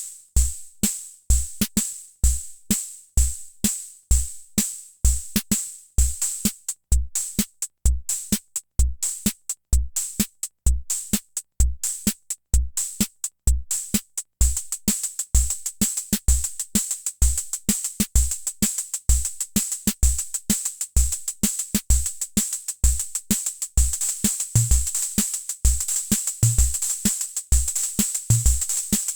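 Hammond Auto-Vari 64 analog rhythm machine playing a preset beat: low bass-drum thumps under regular high hi-hat ticks. About halfway through, the pattern changes to a variation with a steady high cymbal-like hiss, and extra low drum hits come in near the end.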